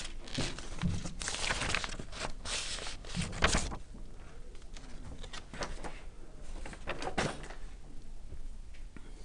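Scattered rustles and light knocks, with one louder thump about three and a half seconds in.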